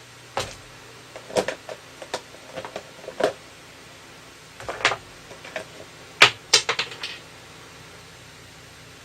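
Tools and metal parts being handled during scooter bearing work: a series of sharp clicks and knocks in small clusters, loudest about six seconds in.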